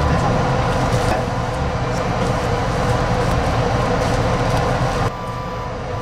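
Steady rushing background noise at a fairly loud level. About five seconds in it drops slightly and a faint steady tone comes in.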